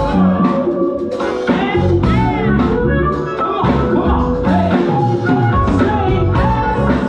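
Live band music: a violin playing a gliding melody over a steady beat with bass and drums.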